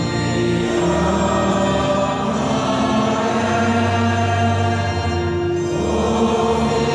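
Congregation singing a slow chorus together in the church, with long held notes that change every second or two.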